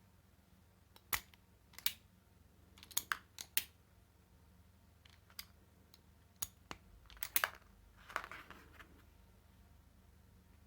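Hand crimping pliers working on wire: a series of sharp, irregular clicks and snaps from the plier jaws and cutter, with a short rustle near the end.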